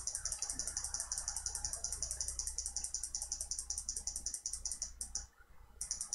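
Rapid, evenly spaced clicking at a computer, about six clicks a second, as items are inserted one after another. It stops about five seconds in and resumes briefly near the end.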